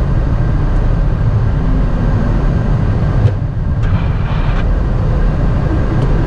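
Embraer 190 cockpit noise while the jet rolls off the wet runway onto the taxiway: a steady low rumble from engines, airflow and wheels, heard inside the flight deck.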